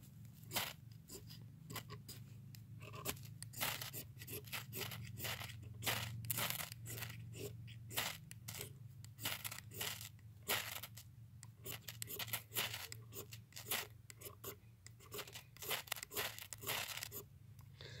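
Ferro rod being scraped hard with a steel striker over a bundle of dry grass, sagebrush bark and juniper bark: repeated sharp rasping strokes, a few each second in uneven runs. The tinder is not catching easily, so the strikes keep going.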